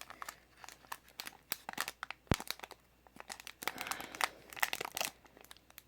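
Foil wrapper of a Pokémon Sun & Moon booster pack crinkling as it is handled and pulled at, in an irregular string of crackles, with one sharp click a little over two seconds in.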